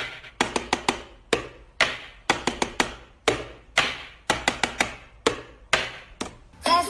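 A run of sharp taps or knocks, roughly two a second with some quick runs of three, each ringing out briefly.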